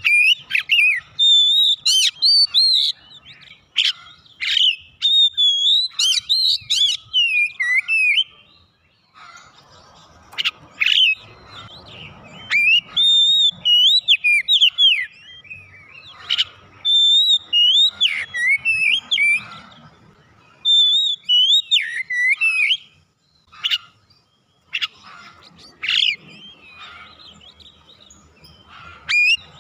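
Caged oriental magpie-robin (kacer) singing loud bursts of rapid, varied whistles that slide up and down, mixed with sharp clicks, with short pauses between phrases.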